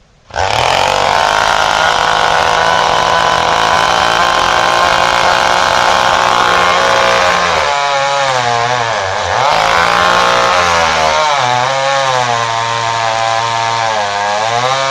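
Small chainsaw running hard at high revs, starting suddenly about half a second in. From about eight seconds in its engine speed dips and recovers several times as the chain loads up in the tree trunk.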